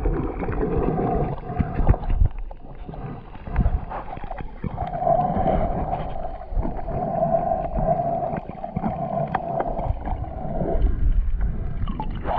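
Muffled underwater sound from a submerged camera: water gurgling and sloshing with scattered knocks, and a steady hum from about five to eleven seconds in.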